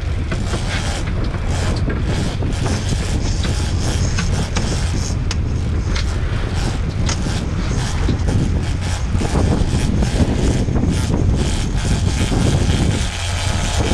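Twin Mercury outboard motors running steadily with the boat under way, mixed with water and wind noise.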